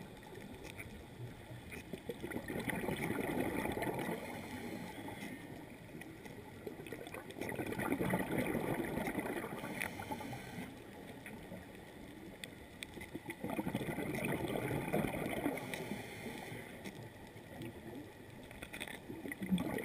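Underwater recording of a scuba diver's exhaled bubbles gurgling up in surges of two or three seconds, about every five or six seconds, with a quieter water hiss between breaths.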